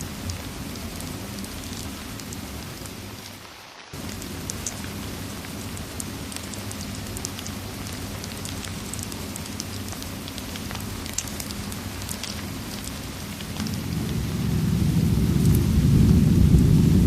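Steady rain with small sharp crackles of a wood fire. The sound briefly drops away about four seconds in, and near the end a low rumble of thunder swells up and becomes the loudest sound.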